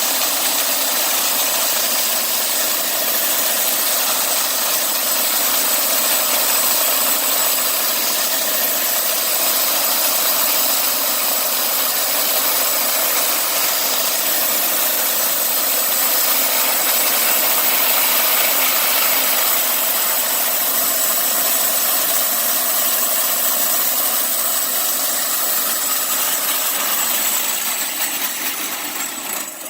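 Homemade bandsaw mill running steadily while milling a black walnut log, dying away near the end.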